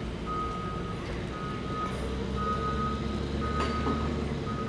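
Flatbed tow truck's reversing alarm beeping steadily, about once a second, with the truck's engine running underneath.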